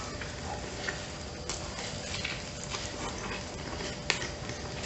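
Close-up mouth sounds of a man chewing stuffed pizza bread, with soft crackles as the bread is torn apart by hand. Two sharp clicks stand out, one about a second and a half in and one near the end.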